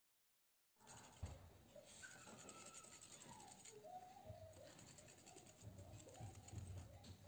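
Faint kitchen sound starting about a second in: milk poured into a glass bowl of batter with a wire whisk in it, a soft liquid patter with light clicks. A faint wavering tone slides downward through the middle of it.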